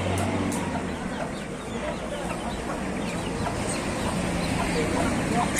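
A domestic hen and her young chicks clucking and peeping in short, scattered calls over steady background noise.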